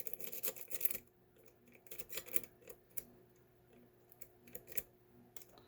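Triple-peak Bogota rake scrubbing over the pin stacks of a deadbolt cylinder under light tension: a quick run of small metallic clicks in the first second, then scattered single ticks.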